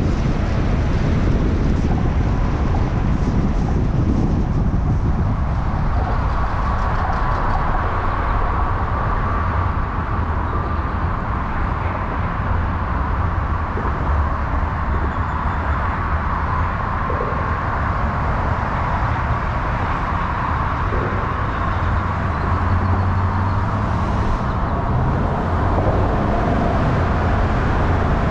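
Car driving along a city road: steady road and tyre noise with a low rumble.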